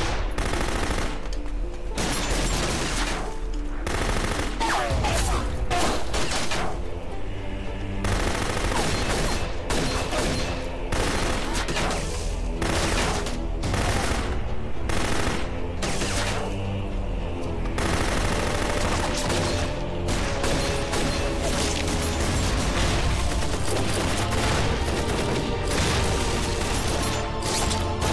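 Heavy battle gunfire: rifles firing in rapid, overlapping volleys, with dramatic background music growing more prominent in the second half.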